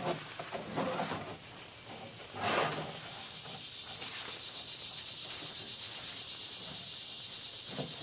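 Fabric of a pop-up camouflage hunting blind rustling and swishing as it is handled and pushed into place, with the loudest swish about two and a half seconds in. Soon after, a steady high-pitched insect buzz sets in and holds.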